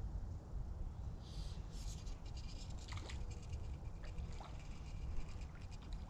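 Small shallow creek trickling faintly under a low, steady rumble, with a few brief rustles and light clicks between about one and three seconds in.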